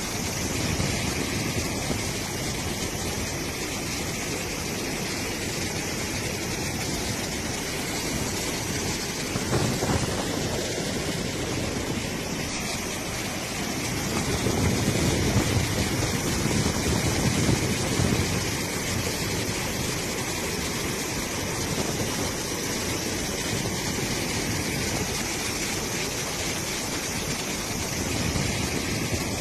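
Muddy floodwater rushing down a flooded wadi after heavy rain: a steady rushing noise, louder for a few seconds about midway.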